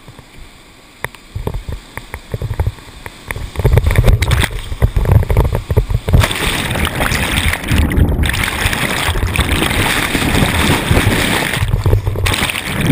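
Whitewater rapids heard from a kayak running them: lighter water noise and small knocks at first, then a heavy low rumble. About six seconds in, as the kayak drops into the rapid, loud rushing, splashing whitewater takes over.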